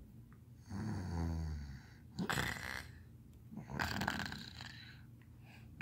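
A person imitating snoring: one drawn-out snore whose pitch falls, then two breathy exhales.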